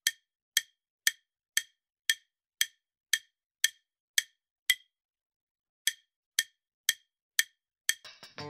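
Countdown-timer ticking sound effect: short, sharp clock-like ticks about two a second, with a pause of about a second midway. Music starts near the end.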